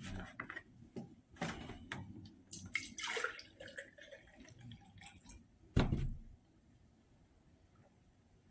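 Milk poured from a plastic jug into a tall drinking glass, splashing and gurgling, with knocks from handling the jug. About six seconds in comes a sharp thump as the jug goes down on the table, and then it is quiet.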